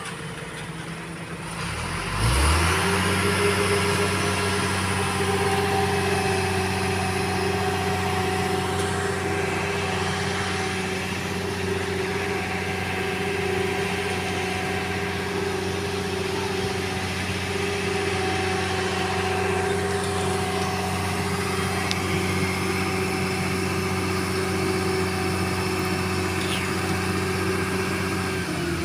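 A heavy diesel engine of the construction machinery revs up about two seconds in and is held at a steady raised speed, then drops back at the very end.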